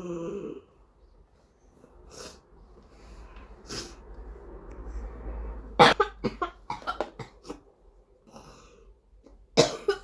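A 12-year-old child's whooping cough (pertussis): a rapid run of about seven short, sharp coughs about six seconds in, and another cough near the end, with noisy breathing before the run.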